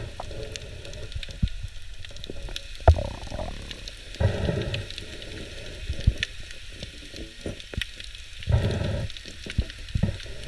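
Underwater sound through a camera housing: a steady crackle of fine clicks, a few sharp knocks, and muffled low rushing bursts about every four seconds.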